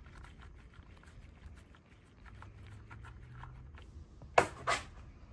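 Hand tools working the transmission drain plug loose: light, irregular clicks and taps, then two sharp knocks about four and a half seconds in.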